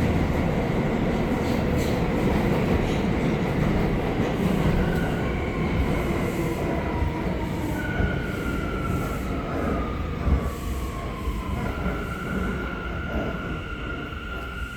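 R179 subway car running on the rails, its rumble slowly easing off as the train slows. A falling whine sounds in the middle, then a steady high-pitched wheel squeal near the end.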